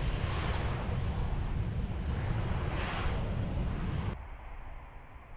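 Jet airliner engine noise, a loud rumble that swells twice and then cuts off suddenly about four seconds in, leaving a faint background.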